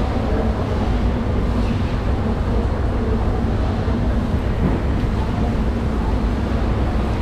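A steady low mechanical rumble with a faint hum running under it, like engines or machinery.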